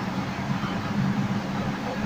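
A steady low hum, with no other distinct sound.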